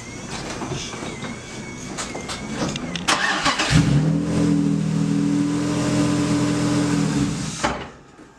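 The stock inline-six of a BMW E36 328i is cranked by the starter about three seconds in. It catches and runs at a steady idle for about four seconds, then stalls abruptly near the end because the car was left in gear.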